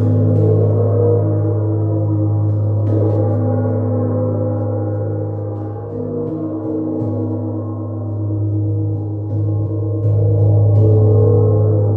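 Gong played continuously, a sustained ringing wash of many overtones over a deep hum, with soft strikes now and then. It swells louder a few times, most strongly near the end.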